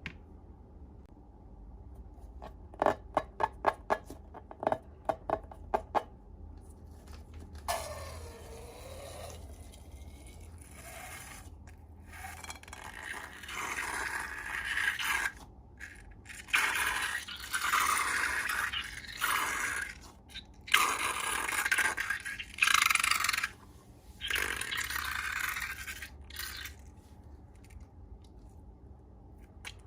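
Slime-making handling sounds: a quick run of about eight short sharp clicks, then repeated stretches of scraping and crackling that stop a few seconds before the end.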